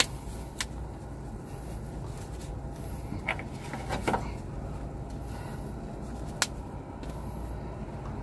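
Steady low background machinery hum, with a few sharp clicks and taps as a plastic squeeze bottle of soapy water is handled against the oxygen cylinder's valve fittings: a pair of taps about four seconds in and a single click a couple of seconds later.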